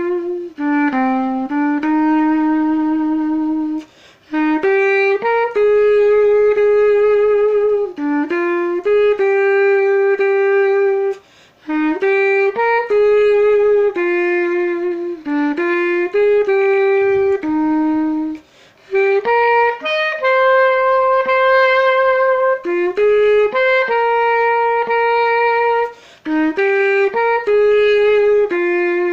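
Unaccompanied solo clarinet playing a slow hymn melody in long held notes, with four short breath pauses.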